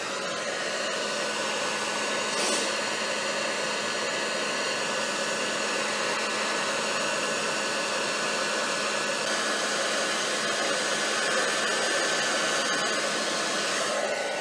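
Handheld hair dryer switching on and running steadily: an even rush of hot air with a steady motor whine.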